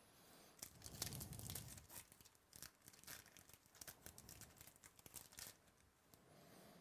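Foil trading-card pack wrapper being torn open and crinkled by hand: a dense run of crackling tears lasting about five seconds, then dying away.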